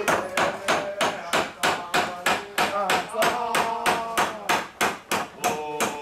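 Hammer driving nails into a wooden timber frame, in steady strokes of about three a second.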